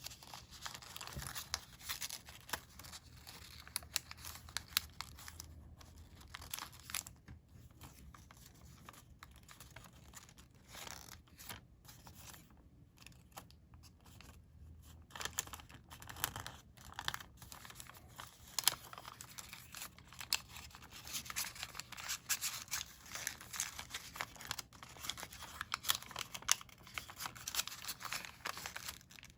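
Colored origami paper being folded and creased by hand: irregular crinkling, rustling and short, sharp creasing strokes.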